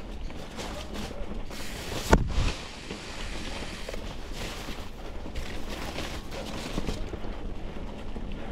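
Mountain bike ridden along an overgrown dirt singletrack: steady wind rumble on the microphone with the hiss of tyres and brushing vegetation, and one loud thump about two seconds in as the bike jolts.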